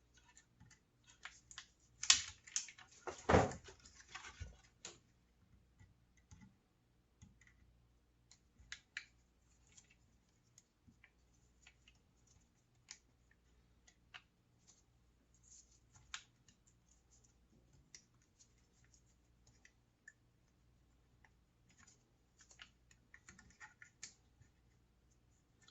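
Light, irregular clicks and taps of a screwdriver and small router parts being handled as a screw is driven in, with a cluster of louder clicks in the first few seconds and sparse faint ticks after.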